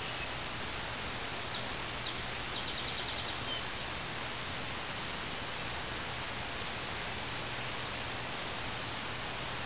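Steady outdoor hiss, with a few short, high bird chirps about a second and a half in, followed by a quick run of chirps that stops near the middle.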